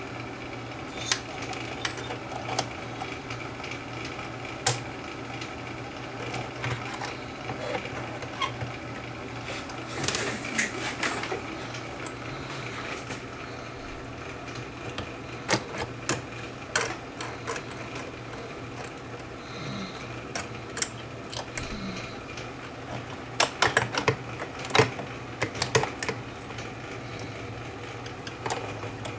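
Small metal parts of a reel-to-reel tape deck's transport mechanism clicking and clattering as they are handled and fitted back together by hand, in scattered taps with flurries about a third of the way in and again near the end, over a steady background hum.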